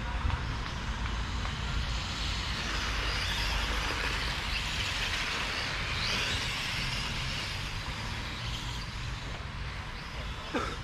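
Electric Tamiya M-chassis RC cars racing on asphalt, their motor whine and tyre noise swelling as they pass about halfway through, with a brief sharp whine near the end.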